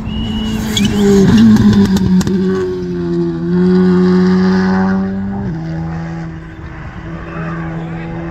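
Rally car engine at full throttle on a special stage, rising in pitch and stepping down as it changes gear, with a burst of sharp cracks about a second in. It is loudest in the first half and fades after about five and a half seconds as the car pulls away.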